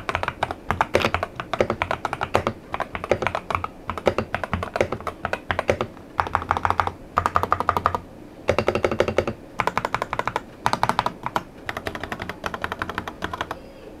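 Typing on an Epomaker Brick 87 mechanical keyboard fitted with Gateron Pro Yellow 2.0 linear, factory-lubricated switches: rapid runs of keystrokes in bursts, broken by brief pauses.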